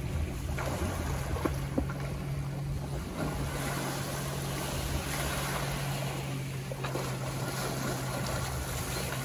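Small waves lapping on a sandy shore, with wind, and the splashing of a swimmer coming in and wading out through the shallows near the end. A steady low hum runs underneath.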